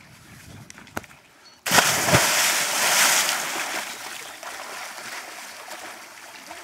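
A person jumping into a lake: a loud splash about two seconds in, then water churning and sloshing that slowly dies down as they swim away.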